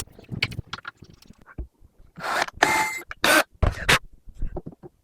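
Workshop handling noise while fitting wooden legs to a small cabinet: scattered clicks and knocks, with two short bursts of scraping about halfway through.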